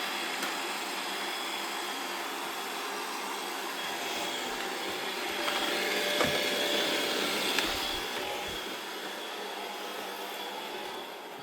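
Robot vacuum cleaner running with a steady whir and a faint high whine, growing louder around the middle and fading toward the end.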